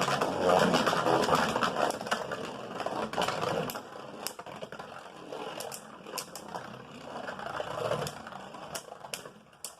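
Beyblade spinning tops grinding against each other and the plastic stadium, with repeated sharp clicks as they collide. Loudest for the first few seconds, then fading as the tops lose spin near the end of the battle.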